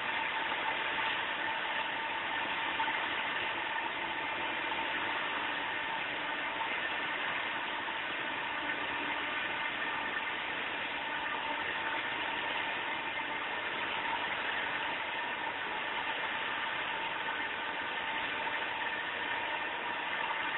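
Woehler parts-processing machine running steadily as sheet-metal parts pass through it: an even mechanical hum and hiss with a constant thin whine.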